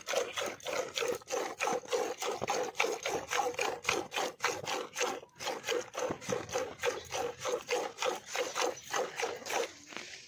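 Cow being milked by hand into an aluminium bucket: rhythmic squirts of milk hitting the froth in the pail, about three a second.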